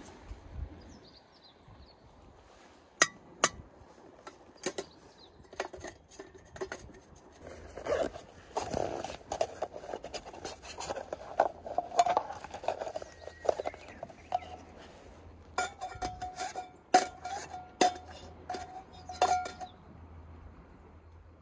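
Metal camp cookware clinking and knocking: an aluminium Sierra cup and small stove being handled, a string of separate sharp clinks, some ringing briefly.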